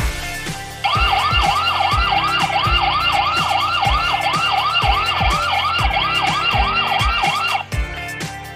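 GOQ Q58 Wi-Fi security camera sounding its alarm siren: an electronic tone sweeping up and down about three times a second. It starts about a second in and stops shortly before the end, with background music and a steady beat underneath.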